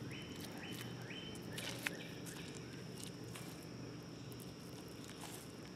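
Quiet outdoor background with scattered small clicks and soft rustles of hands moving cut watermelon pieces, plus a few short high chirps in the first second and a half.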